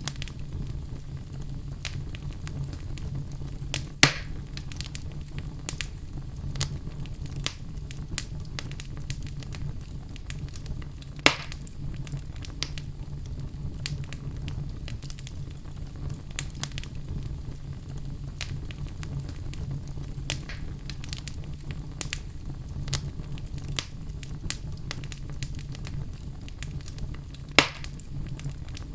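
Campfire burning: a steady low rumble of flames with frequent small crackles, and three louder pops from the burning wood, near the start, in the middle and near the end.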